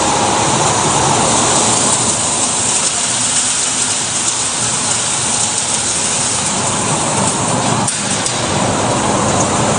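Sawdust airflow dryer running: its centrifugal blower drives a loud, steady rush of air through the ducts.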